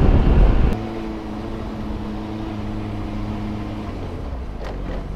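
Wind and road rush from a moving motorcycle cut off abruptly under a second in, leaving a motorcycle engine idling with a steady hum.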